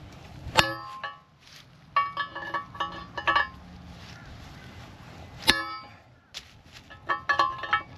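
Hammer blows on metal driving the old front wheel bearing out without a press: a single hard strike about half a second in and another about five and a half seconds in, with two quick runs of lighter strikes between and near the end, each hit ringing metallically.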